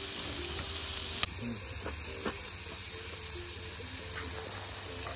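Beef sizzling on aluminium foil over a campfire grill, a steady hiss that drops suddenly about a second in and carries on more quietly.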